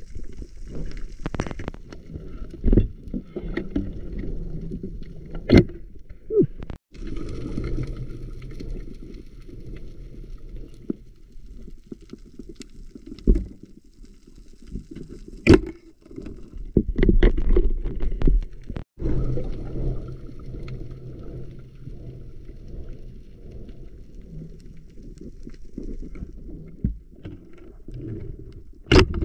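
Muffled underwater sound heard through a camera's waterproof housing: a low, steady rush of moving water broken by a dozen or so sharp clicks and knocks.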